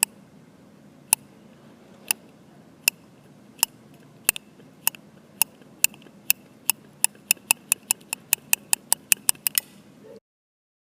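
A series of sharp clicks over faint room noise, about a second apart at first and speeding up steadily to several a second, like an accelerating countdown tick, then cutting off abruptly near the end.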